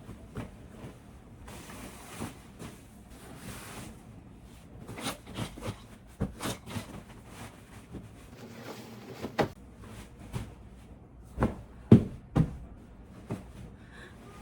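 Sabre cutlery being handled: irregular sharp clicks and knocks as pieces are picked up and set down, with a stretch of soft rubbing about two seconds in, as the new cutlery is wiped to remove its factory polishing compound.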